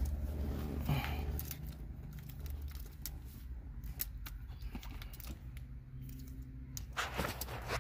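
Scattered light clicks and rattles of hand tools being handled over a low steady hum, with a small cluster of clicks near the end.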